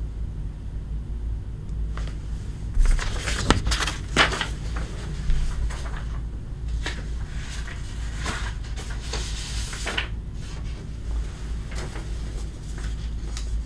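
Scattered knocks and clatter, loudest a few seconds in, with a stretch of rustling about nine seconds in, over a steady low hum.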